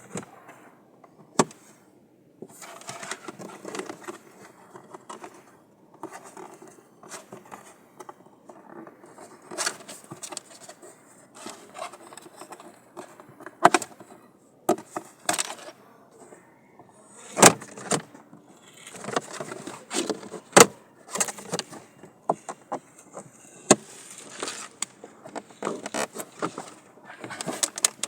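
Hands working the plastic parts of a car's cabin air filter housing: irregular sharp clicks and knocks of plastic trim and clips, with rustling and scraping as parts are handled and moved.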